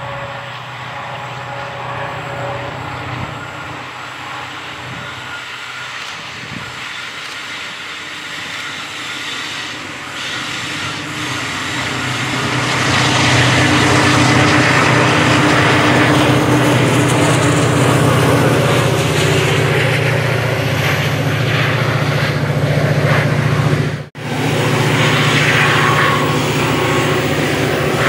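Diesel-electric freight locomotives passing at close range, hauling a train of grain hoppers: a steady low engine drone with wheel and rail noise. It grows louder from about twelve seconds in as the locomotives come near, and cuts out for an instant near the end.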